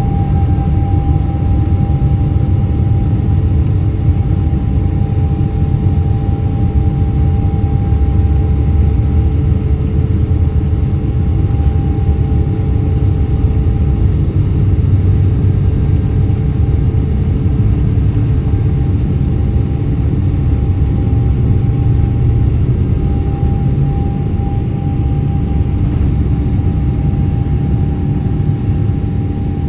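Boeing 777-300ER's GE90 turbofan engines at takeoff power, heard from inside the cabin beside the wing: a loud steady rumble with a steady tone over it, through the takeoff and into the climb.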